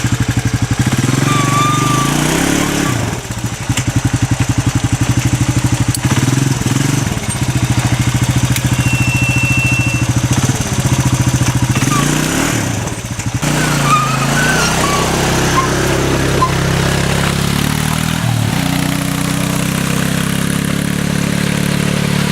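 Honda FourTrax 250 ATV engine working under load, its revs rising and falling repeatedly as it tries to drag a log out of a ditch in two-wheel drive.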